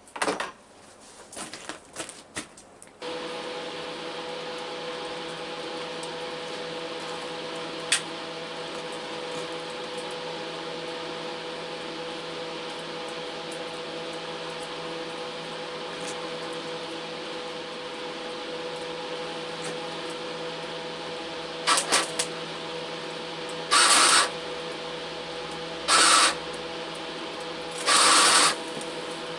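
Electric welder switched on and humming steadily, then four short bursts of arc welding about two seconds apart near the end, as rods are tacked onto a metal lampshade ring. A few clicks and knocks of handling come before the hum starts.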